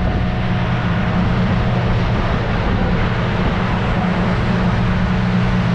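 Boat taxi's engine running steadily under way, a constant low hum, with a steady rush of wind and water over it.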